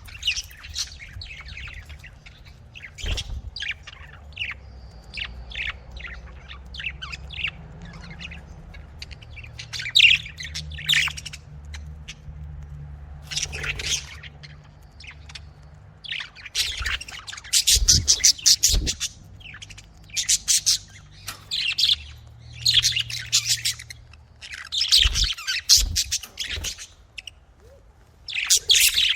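Pet budgerigars chirping and chattering: scattered short high chirps at first, then dense, rapid bursts of chatter in the second half.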